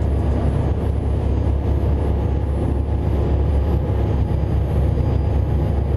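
A passenger ferry's engines running steadily at cruising speed, a constant low drone under the rush of its wake.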